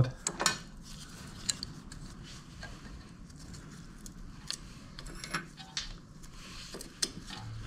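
Scattered light clicks and clinks of pliers working the handbrake cable's end fitting at a rear brake caliper, squeezing the cable's plastic retaining barbs to free it.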